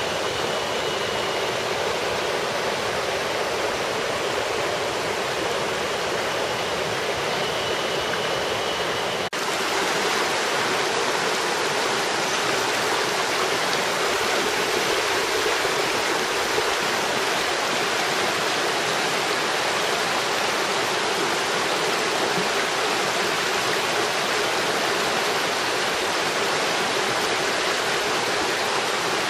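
Steady rush of a small, clear mountain stream running over shallow rocky riffles, with a short break in the sound about nine seconds in.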